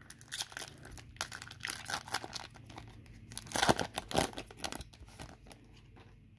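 Foil wrapper of a Topps baseball card pack being torn open and crinkled by hand: a quick run of crackles and rips, loudest about three and a half to four seconds in.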